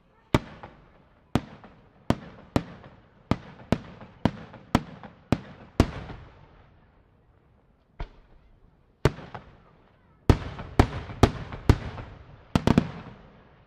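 Aerial firework shells bursting overhead in a rapid series of sharp bangs, each trailing off in a rolling echo, with a lull of about two seconds in the middle before another quick run of bursts.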